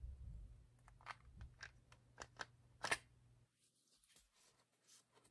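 Faint light clicks and taps from handling small items, about seven short ticks over the first three seconds, the loudest just before the three-second mark.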